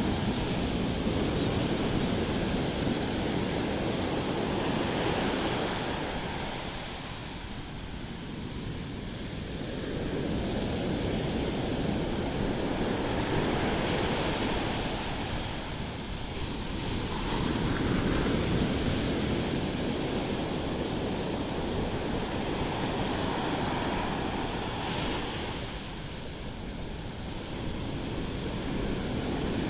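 Ocean surf breaking and washing up the beach, a steady rush that swells and eases every several seconds.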